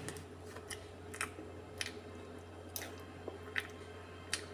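Close-up mouth sounds of someone eating ice cream off a spoon: a series of short wet smacks and clicks, about seven in all, over a faint steady hum.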